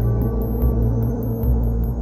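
Dark ambient soundtrack music: a deep, slowly pulsing drone with faint held tones above it, and a faint high ticking about five times a second.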